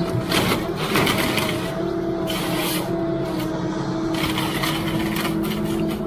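Forestry harvester at work processing a felled trunk: the engine and hydraulics hum steadily. The harvester head's feed rollers and saw make rasping bursts during the first second and again around two to three seconds in, after a sharp knock at the very start.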